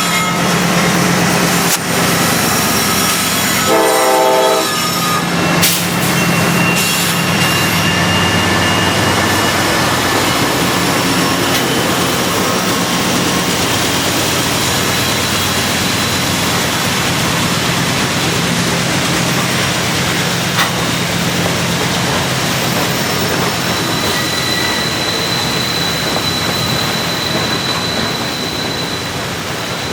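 CSX freight train's GE diesel-electric locomotives and cars running past under throttle: a steady, loud engine drone with rolling wheel noise. A short horn blast sounds about four seconds in, and a thin high wheel squeal comes in during the second half.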